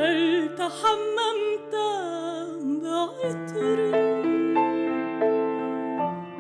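Classical soprano singing an Arabic art song with wide vibrato over grand piano accompaniment; about halfway through the voice pauses while the piano holds and plays on.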